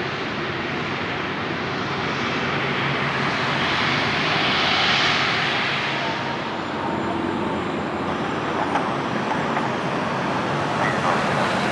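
Jet airliner on low final approach to land passing by, its engine noise swelling to loudest about halfway through and then fading.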